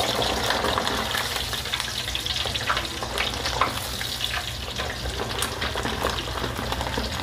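Chicharon bulaklak (pork mesentery) deep-frying in an electric deep fryer: the oil bubbles and crackles steadily, with many small pops. A steady low hum runs underneath.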